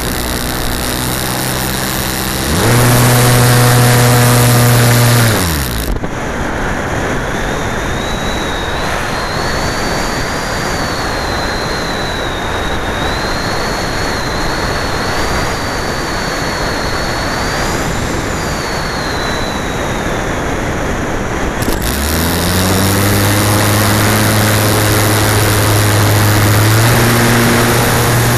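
Onboard sound of an RC model glider's motor and propeller running, throttled up briefly and then spinning down to a stop about six seconds in. Air then rushes over the airframe and microphone, with a thin wavering whistle, while the glider flies unpowered. About twenty-two seconds in the motor spins back up and runs steadily, with a further step up in power near the end.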